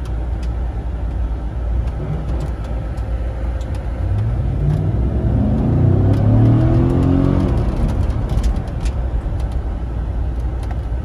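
GMC Yukon Denali's V8 engine heard from inside the cabin while driving, over steady road and wind rumble; about four seconds in the engine note rises and grows louder as the truck accelerates, then settles back after a few seconds.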